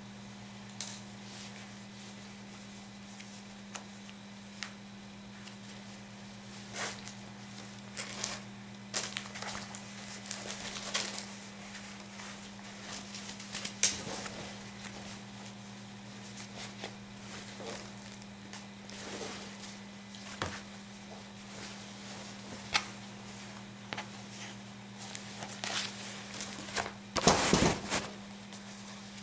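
Scattered rustles, clicks and handling noises of clothing packaging, a folded, pinned dress shirt with a cardboard collar insert, being unpacked. The noises are loudest about a second before the end, as the shirt is handled close to the microphone, over a steady low hum.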